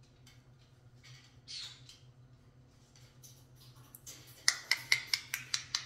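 Young pyrrhura parakeet giving a quick run of about eight short, harsh squawks in the last second and a half, after a faint rustle earlier on.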